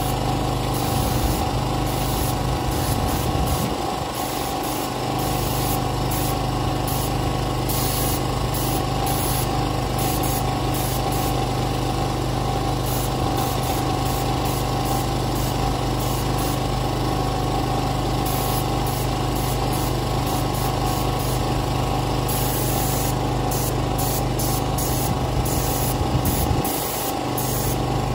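Small petrol engine of a portable generator running steadily, with the hiss of a compressed-air paint spray gun coming and going in many short bursts.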